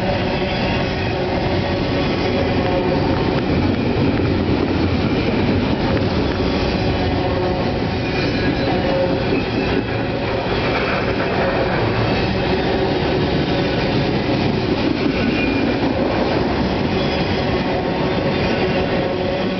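Double-stack intermodal freight cars rolling steadily past: a continuous rumble of steel wheels on rail, with faint steady squealing tones from the wheels.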